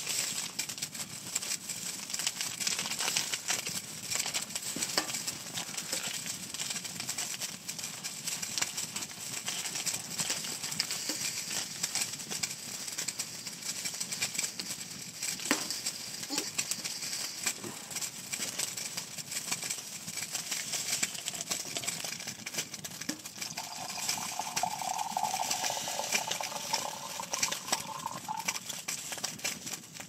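Foil tea sachet crinkling as it is torn open and handled, over a steady hiss with many small crackles. A short steady tone sounds for a few seconds near the end.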